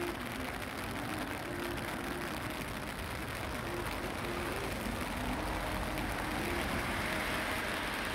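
Steady outdoor hiss of a wet, rainy day, swelling a little about six seconds in, with a faint simple tune playing underneath.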